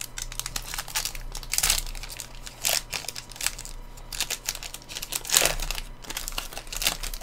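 Sports-card pack wrapper being torn open and crinkled by hand: a run of irregular crackles and crinkles, with a few louder tears.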